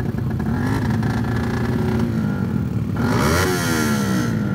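Tuned racing motorcycle engines idling and being revved. There is a short blip about a second in, then a hard rev about three seconds in that climbs and drops back to idle.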